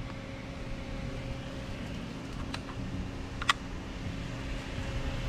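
Steady machine hum, with two sharp clicks from a plastic digital hanging scale being handled, the second and louder one about three and a half seconds in.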